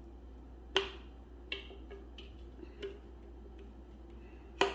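Sharp taps and clicks of a utensil against a mixing bowl as cake batter is scraped out. There are two loud taps, about a second in and near the end, with fainter clicks between.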